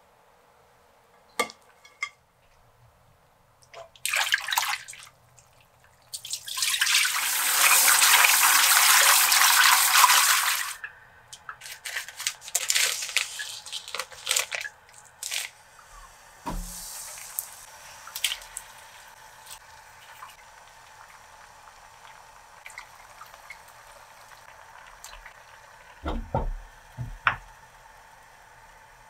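Kitchen tap running into a sink for about four seconds, the loudest sound here. Scattered knocks and handling noises come around it, including the crinkle of a plastic food packet being handled.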